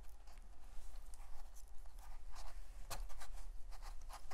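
Wet fingers rubbing and smoothing the surface of an air-dry terra cotta clay pot: soft, irregular scraping with a few small clicks about three seconds in.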